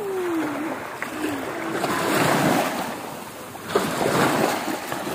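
Small sea waves washing onto a beach, a steady rushing surf that swells about two seconds in and again near the end.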